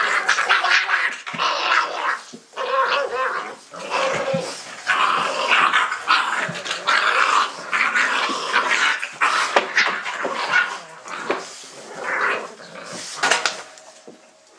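A litter of Dogo Argentino puppies growling and yipping in play as they wrestle each other and their mother, in a quick irregular run of short bursts.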